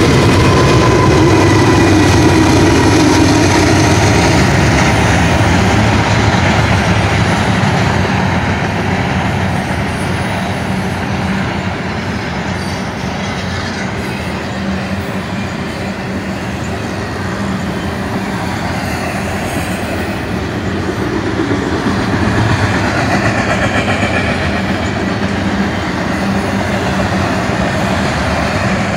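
A BNSF double-stack intermodal freight train passing close by. The trailing GE diesel locomotives (ES44C4 and Dash 9-44CW units) are running as it opens, with a thin whine that fades over the first few seconds. Then the steel wheels of the container well cars roll steadily past.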